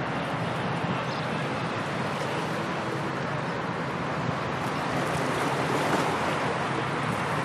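Steady, even hiss of sea and wind, with no gusts and no distinct tones.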